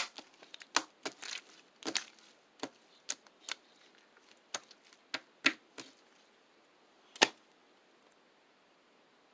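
Irregular sharp clicks and taps, about a dozen, spaced unevenly and stopping about seven seconds in.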